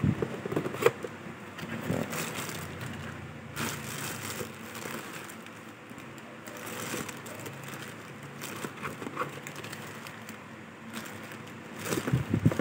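A fishing reel's box and packing being handled: scattered rustles, crinkles and light knocks.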